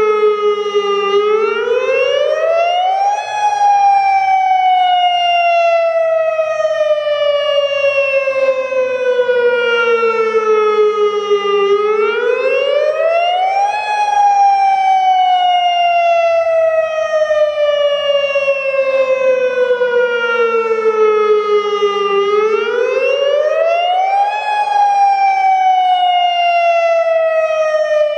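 Federal Modulator 6048 outdoor warning siren sounding the attack (wail) signal. Its loud tone rises quickly over about two seconds, then slowly falls over about eight, three times over.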